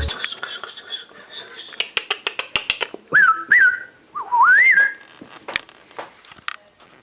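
A run of quick sharp clicks, then whistled notes: two short ones that rise and level off, followed by a longer one that dips and then swoops up.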